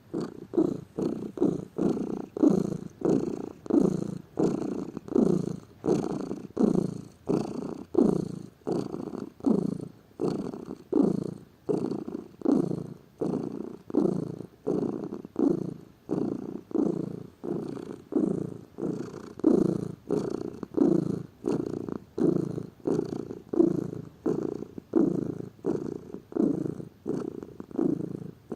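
Domestic cat purring, a steady rhythmic purr that swells and fades with each breath in and out.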